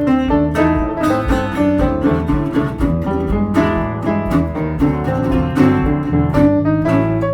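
Acoustic string-band music in an old-time country blues style: quickly picked guitar notes over a steady bass line.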